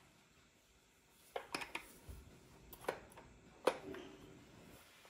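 Steel wire beaters clicking and knocking against a Hamilton Beach hand mixer as they are pushed into its sockets to lock them in. A few small sharp clicks and taps start about a second and a half in, the loudest near the four-second mark.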